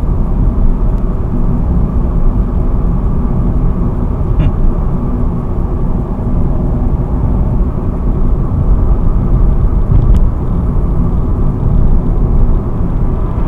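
Car engine and road noise heard from inside the moving car's cabin, a steady low rumble, with a faint click or two.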